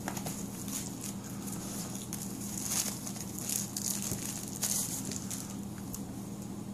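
Thin plastic protective sleeve crinkling and rustling in the hands as a smartphone is slid out of it, in irregular bursts that are loudest around the middle.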